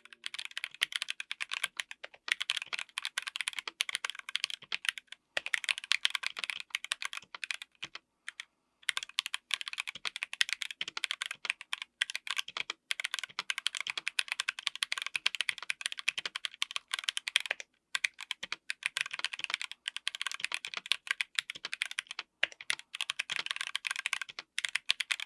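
Mechanical keyboard fitted with Ajazz Peach linear switches being typed on for a sound test: a dense run of keystroke clacks, broken by a few short pauses.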